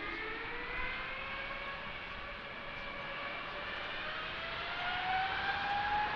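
Boeing 777-200ER's twin jet engines spooling up on the takeoff roll: a whine that rises steadily in pitch over a continuous rumble, growing a little louder near the end.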